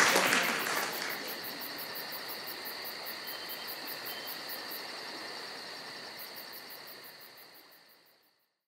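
Applause dying away in the first second, giving way to a steady background of chirping insects with a regular high pulse of about four a second that fades out near the end.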